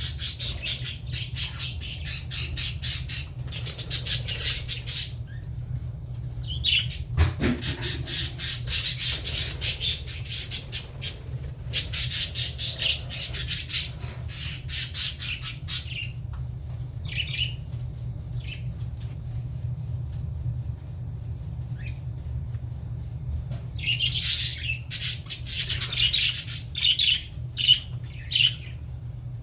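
Budgerigars chattering in long runs of rapid, harsh notes, then a few scattered single calls, then a louder cluster of squawks near the end. A steady low hum runs underneath.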